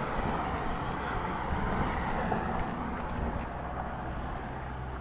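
Road traffic passing on the adjacent highway bridge: a steady rushing of tyres and engines with a low rumble, slowly fading as the vehicles move away.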